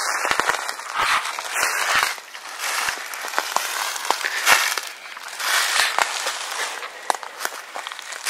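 Footsteps walking through thick dry leaf litter on a forest floor, the leaves crunching and crackling underfoot about once a second.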